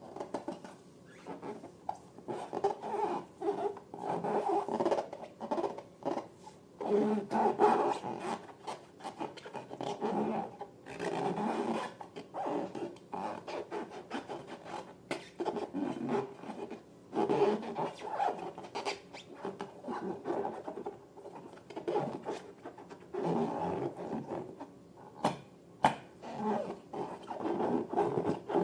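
Latex balloons rubbed and squeezed by hand, giving squeaky rubbing in irregular bursts of a second or two, with a few sharp clicks.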